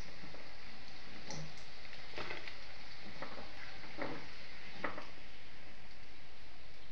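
Batata vadas deep-frying in a kadhai of hot oil, a steady sizzle, with a few faint clicks scattered through it.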